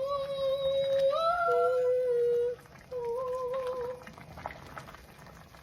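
A woman's voice humming with closed lips. It holds one long note for about two and a half seconds, stepping up in pitch partway through, then after a short pause hums a second, shorter, wavering note.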